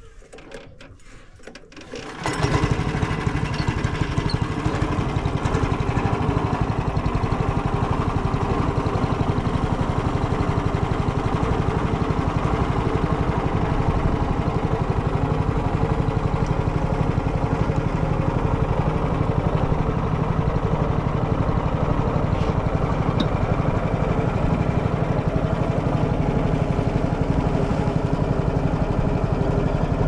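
Long-tail boat engine on a narrow wooden riverboat, coming in abruptly about two seconds in and then running loud and steady under way.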